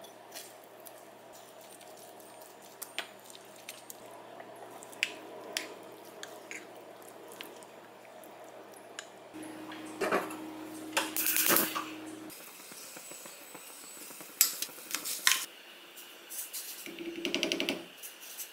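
Kitchen sounds: a wooden spoon scraping wet vegetable batter out of one ceramic bowl into another, with soft squishing and small taps. About nine seconds in, a black earthenware pot clunks and knocks against a gas stove's grate, then a wooden spoon stirs water in the pot and clinks against its sides.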